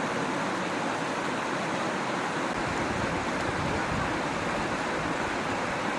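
Mountain stream water rushing steadily over rocks, an even unbroken noise.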